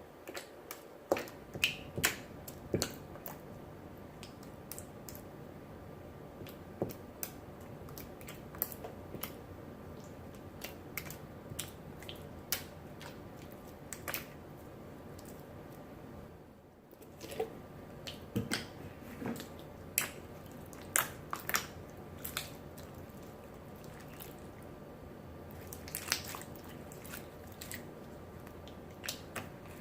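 Clear jiggly slime made from clear glue and borax activator being squished and pressed by hand, giving irregular wet clicks and pops.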